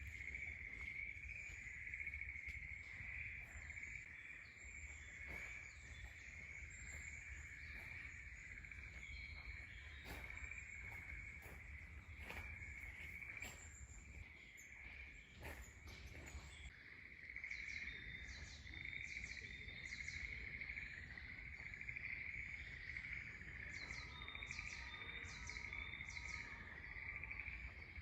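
Faint outdoor morning ambience: a steady, wavering high insect drone throughout, with birds chirping in quick repeated runs in the second half. A few scattered faint clicks fall in the first half.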